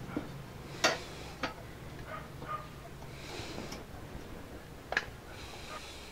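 Steel cage parts being handled and set in place: about five light, sharp metallic clicks and taps spread out, the loudest about a second in, over a steady low hum.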